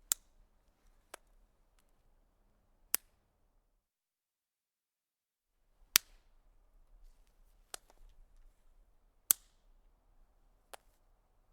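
Dry twigs snapping: seven sharp, single cracks, some loud and some faint, a second or two apart, with a silent gap in the middle.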